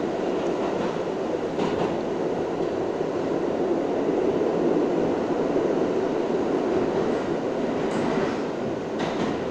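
R62 subway car running at speed through a tunnel, heard from inside the car: a steady roar of wheels and running gear on the rails. A few sharp clicks from the wheels over rail joints come about 2 s in and twice near the end.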